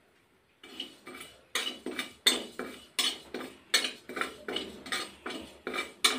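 A metal spatula scraping and stirring whole cumin seeds around a dry metal kadai as they roast, in quick regular strokes, about two to three a second, starting about half a second in.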